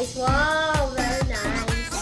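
Background music: a voice singing over a steady drum beat of about two strokes a second.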